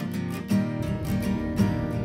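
Background music with a steady beat; a deeper bass part comes in about half a second in.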